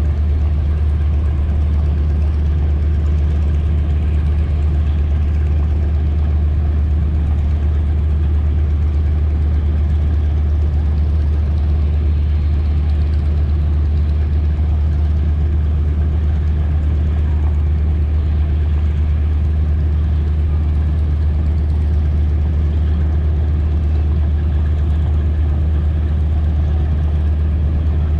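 Boeing B-17 Flying Fortress's Wright R-1820 Cyclone radial engines running steadily: a loud, deep, unbroken propeller drone with no change in pitch.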